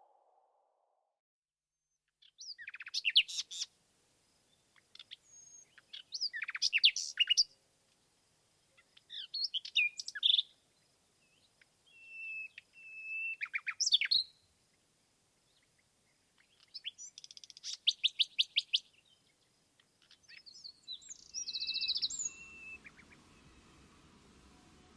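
Small woodland songbirds singing in short, high, fast phrases, about six of them a few seconds apart, some ending in a rapid trill. A faint steady background hiss comes in near the end.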